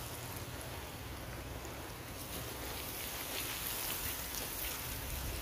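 Potato fries deep-frying in very hot oil in a large pan: a steady sizzle and crackle of vigorously bubbling oil.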